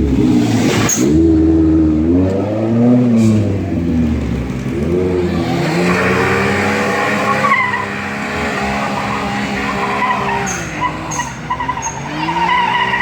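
Daihatsu Hijet's small turbocharged engine revving hard, its pitch repeatedly rising and falling. About six seconds in, a high squeal joins it and runs on over the engine.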